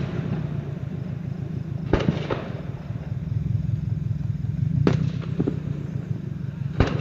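Aerial fireworks shells bursting in the distance: sharp bangs about two, five and seven seconds in, each followed shortly by a weaker crack, over a steady low hum.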